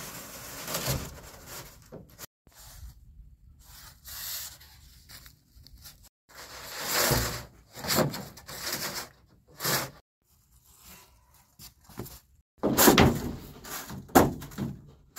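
Irregular rustling and rubbing of bedding and gear being handled and spread out, coming in short bursts with a few louder knocks near the end.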